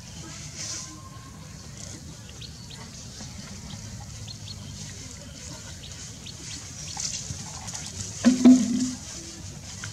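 A chick peeping in a scatter of short, thin, high peeps while it is held down. About eight seconds in there is a brief, louder, low-pitched call.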